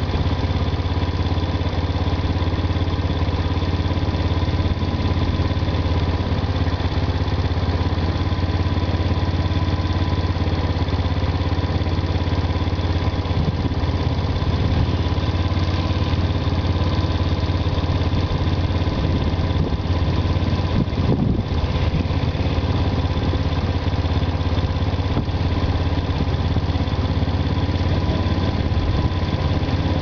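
Quad bike engine running steadily at idle.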